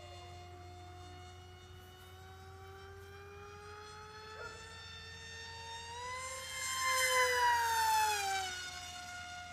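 Whine of an RC delta jet's 2212 2450kv brushless outrunner motor driving a 5.5x4.5 pusher prop on a 4S battery, steady at a distance. About six seconds in it grows much louder as the plane makes a fast pass, and the pitch drops as it goes by.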